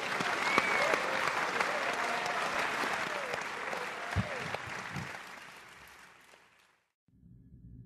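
Audience applauding, with a few voices calling out among the clapping. The applause fades away about seven seconds in, and a low steady hum comes in just before the end.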